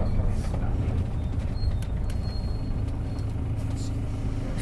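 Isuzu Erga PJ-LV234L city bus's turbo-diesel engine running at a steady, even level, with a few faint clicks and rattles over the low hum.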